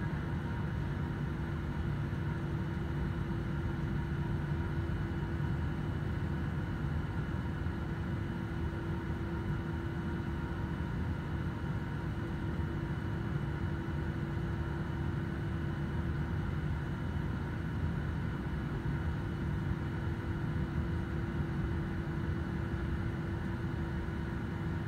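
Jet airliner cabin noise while taxiing with the engines at idle: a steady low rumble with a constant hum and a few faint steady whining tones above it.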